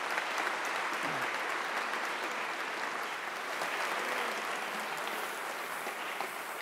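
Audience applauding: a steady wash of many hands clapping that starts to ease off near the end.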